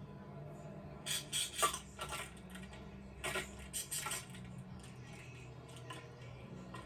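Scattered light clicks and knocks over a low steady hum, bunched in two clusters about a second in and about three seconds in.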